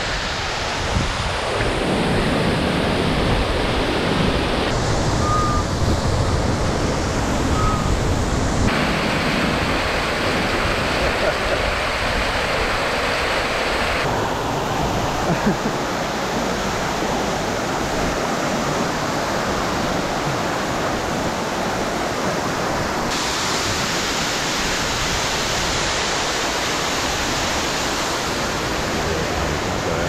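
Waterfall on a rainforest creek: a loud, steady rush of falling and splashing water, whose tone changes abruptly several times.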